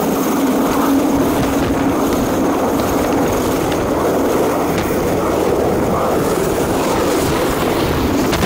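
Chinese Navy helicopter hovering low overhead, its rotor and engine noise steady and loud, mixed with wind noise on the microphone.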